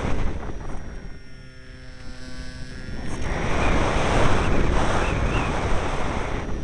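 Strong wind buffeting the microphone as a loud rushing noise. It eases about a second in and picks up again near three seconds in. During the lull a faint hum with several steady tones shows through.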